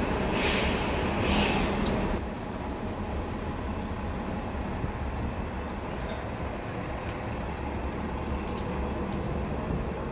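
Steady rumble of city vehicle noise, louder and rushing for about the first two seconds, then settling into an even drone with scattered small clicks.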